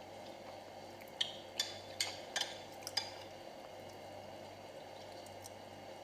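A spoon or other utensil clinking against a dish about six times in quick succession, between one and three seconds in, over a steady background hum.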